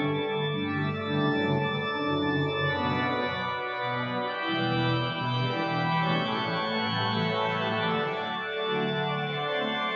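Organ playing slow music in sustained chords, the notes held and changing about every second.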